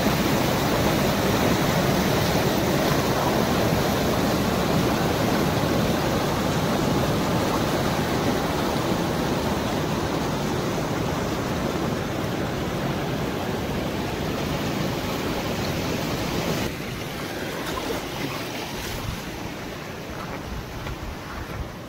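Rain-swollen stream rushing and splashing over rocks at a small waterfall, a steady rush of water that eases gradually and drops noticeably about three-quarters of the way through.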